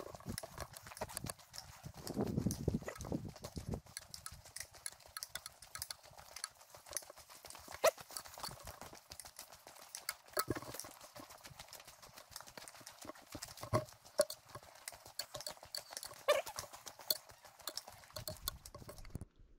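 Irregular stepping on a rocky dirt trail: a steady run of clicks and scuffs with a few sharper knocks, and a low rush about two to four seconds in.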